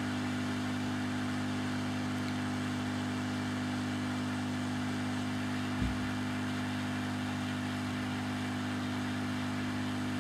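Hot air rework gun running steadily at 50% flow: a low hum with a hiss of blown air, reflowing leaded solder paste under surface-mount resistors. A single short knock about six seconds in.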